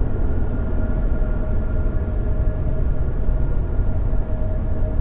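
Steady engine drone: a low rumble with a constant hum over it, unchanging throughout.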